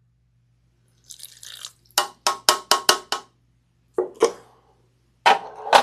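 Apple cider vinegar poured from a spoon into a bowl, then a quick run of about six clinks of the spoon against the bowl with a light ring, followed by a few more separate knocks.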